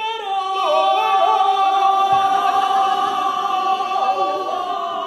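Voices singing on stage, holding one long high note for about four seconds before the pitch wavers and dips near the end.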